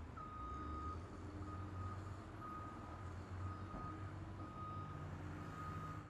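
Vehicle backup alarm beeping, about one beep a second, six times, over a low engine rumble.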